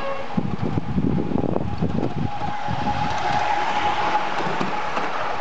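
Ride-on miniature railway train running along a raised track, heard from aboard: wheels rattling and knocking over the rails, with a thin steady whine starting about halfway through.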